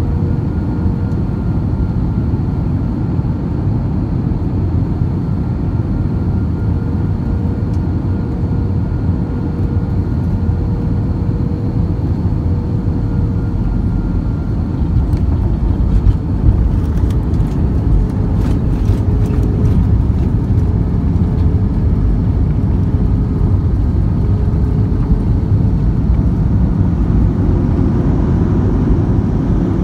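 Cabin noise inside an Airbus A321-231 during landing: a steady deep rumble of the IAE V2500 engines and airflow, with a faint steady whine. About fifteen seconds in, the rumble grows louder and a cluster of sharp knocks and rattles comes through the cabin.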